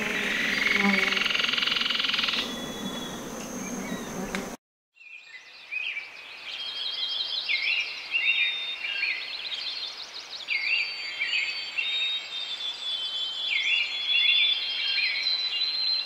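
A nature ambience of many small animals calling, with repeated high looping chirps and whistles. The sound cuts out suddenly about four and a half seconds in, then the chirping resumes in short repeated groups.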